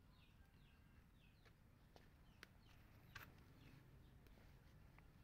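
Faint bird chirping: a series of short falling notes repeated several times, with a couple of faint clicks.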